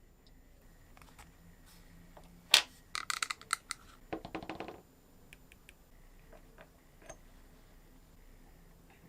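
Small metal parts clinking and rattling on a hard surface: one sharp click, then two quick spells of light clatter, with a few scattered ticks afterwards.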